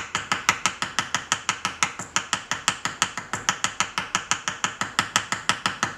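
Small riveting hammer tapping rapidly and evenly on the end of a 1 mm wire rivet, about six light metal-on-metal strikes a second, peening the wire over into a domed rivet head.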